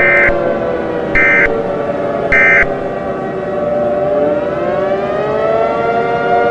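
A civil defense siren wailing, its pitch falling slowly and then climbing again about four seconds in. Three short, high beeps sound about a second apart over it at the start.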